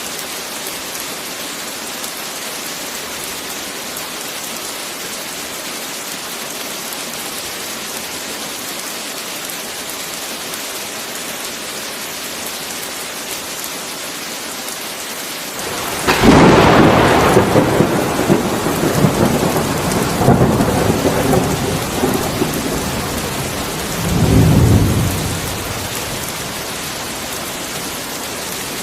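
Steady heavy rain, and about halfway through a sudden loud thunderclap that rumbles on for several seconds, swells once more and dies away into the rain.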